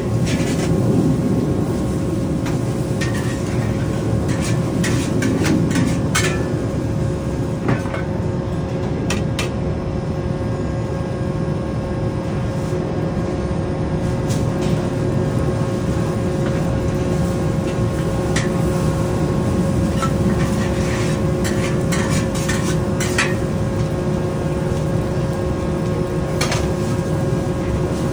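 A steel ladle scraping and clanking against a large wok as fried Hokkien mee is tossed, over the steady low rumble and hum of the stall's wok burner. The clatter pauses for a stretch in the middle while the wok sits under a wooden lid, then starts again.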